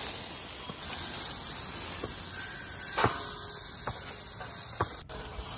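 Water spraying from a garden hose's metal spray nozzle, a steady hiss as the jet strikes the wet ground and then a horse's coat; the hiss eases about a second in. A short sharp knock about three seconds in, and another near the end.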